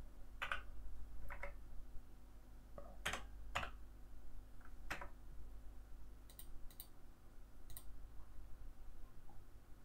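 Scattered clicks of a computer mouse and keyboard, about eight separate clicks at irregular intervals, over a faint steady low hum.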